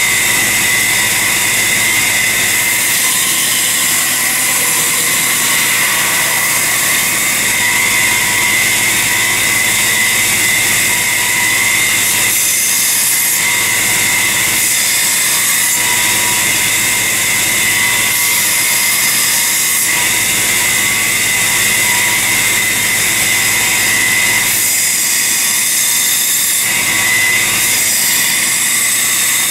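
Power grinder running steadily with a high whine, grinding a hardened steel file blade in spells, with the grinding sound changing as the steel is pressed on and lifted off.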